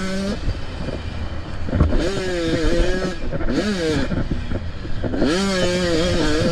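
85cc two-stroke dirt bike engine revving hard in surges. The throttle goes off and on again: the note drops away just after the start, climbs again around two seconds, falls off near three and a half seconds, then climbs and holds high near the end.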